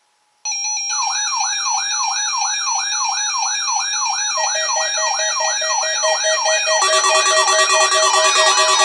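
Several weather alert radios sounding their alarms together, set off by an EAS Required Weekly Test. A rising electronic sweep repeats about twice a second over steady beeping tones. More radios join about four and seven seconds in, and the sound builds louder.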